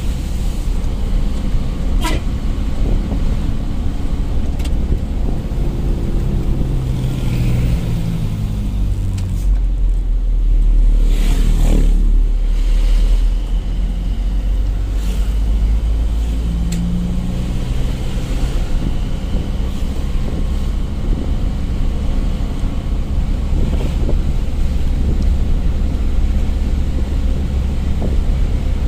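Truck engine running on the road with a steady low rumble. About eight seconds in, its note slides down, and a deeper, louder rumble swells for a few seconds before settling back to a steady drone.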